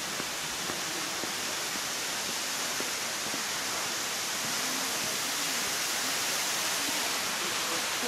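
Narrow waterfall (Biwa Falls) pouring down a rock face: a steady rush of falling water that gets a little louder about halfway through, with faint voices of onlookers underneath.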